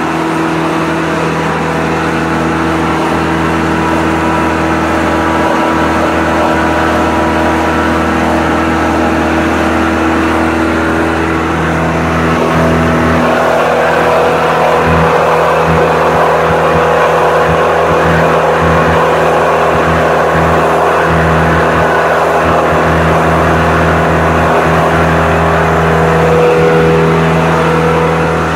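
Morbark Tornado 15 chipper's engine running steadily at high speed, about 2,400 rpm. Its note shifts and grows slightly louder about halfway through.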